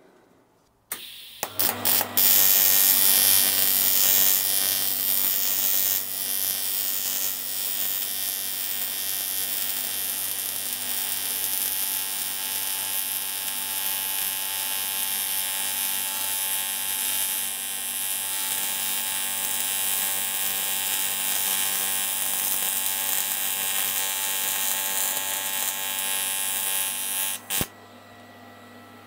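AC TIG welding arc buzzing steadily while filling a small hole in a cast aluminium motorcycle crankcase. It strikes about a second in with a few sharp clicks and cuts off sharply near the end.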